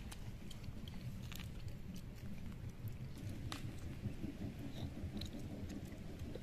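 Faint eating sounds: chewing and scattered small clicks as rice and chicken are eaten by hand, over a steady low rumble.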